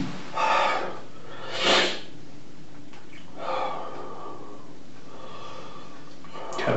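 A man breathing hard and sniffing: three loud breaths or sniffs in the first four seconds, the second the loudest, then quiet breathing.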